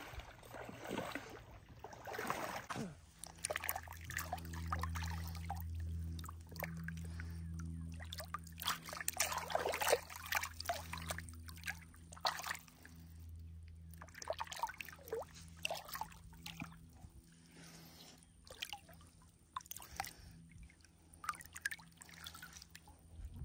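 Water splashing and trickling in irregular bursts as a hand works around a large catfish held in shallow water. Underneath, a low steady hum runs from about three seconds in until past halfway.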